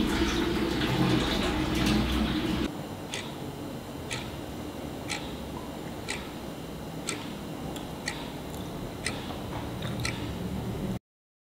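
A clock ticking evenly, one tick a second, over a quiet room. Before it, for the first two and a half seconds or so, a steady rushing noise that cuts off suddenly.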